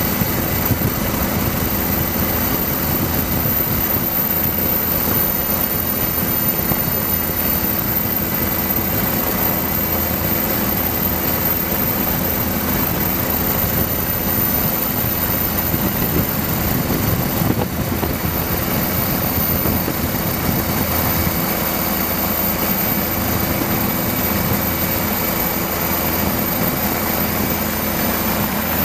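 Helicopter in flight: steady turbine and rotor noise over a rushing sound, with a few steady hum tones and no change in level.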